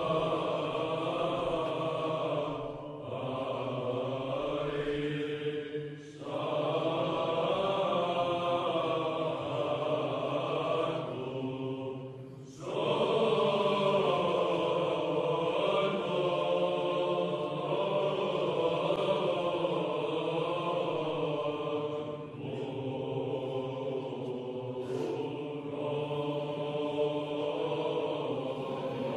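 Greek Orthodox chanting: voices singing long held, slowly moving lines in unbroken phrases, with a short break between phrases several times.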